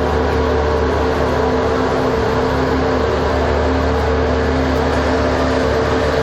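A 2013 Formula One car's 2.4-litre V8 engine running at a steady, unchanging pitch. It cuts in suddenly and loudly, with no revving.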